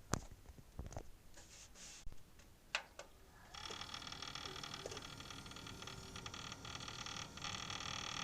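A few knocks and clicks, then about three and a half seconds in a Cooler Master Seidon 120V liquid cooler starts running with a steady high whine and rapid ticking. This is the noise that is faulty in a cooler sold as quiet.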